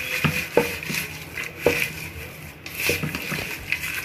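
A spoon stirring and scraping onions, spices, herbs and oil inside a pressure cooker, knocking against the pot several times at an irregular pace.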